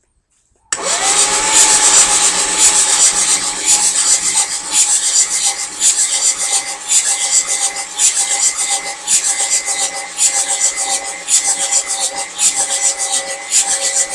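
Starter motor cranking a 6.9-litre IDI V8 diesel with its glow plugs out, so it turns over without firing: a steady whine with a hiss and a regular pulse. It cuts in about a second in and runs until it stops right at the end, with the battery getting weak and the engine lugging a little.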